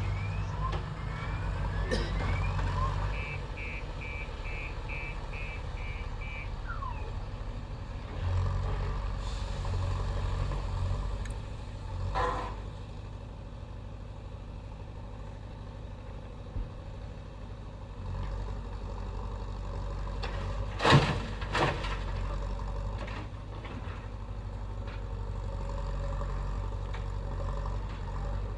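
Diesel engine of a JCB backhoe loader running steadily, its pitch and load rising and falling as the machine works. A reversing alarm gives a short run of about seven beeps a few seconds in. A few metallic clanks come through, the loudest a double knock about two-thirds of the way through.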